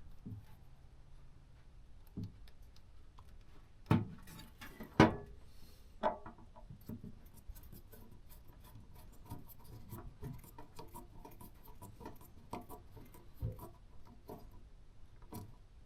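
Hands working wires and small terminals: scattered faint clicks and ticks, with three louder knocks about four, five and six seconds in.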